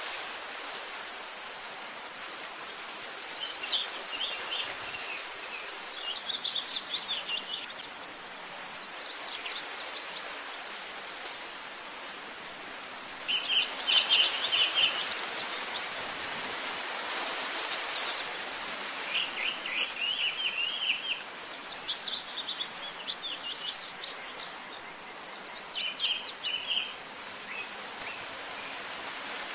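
Small birds chirping and singing in short runs of quick, high notes every second or two, over a steady hiss.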